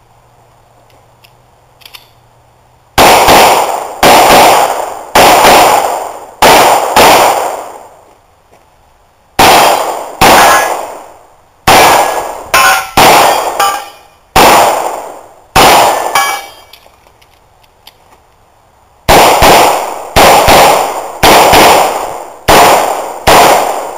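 A handgun fired in rapid strings: three strings of about five to seven shots each, a couple of seconds apart. Each shot is followed by a long echo.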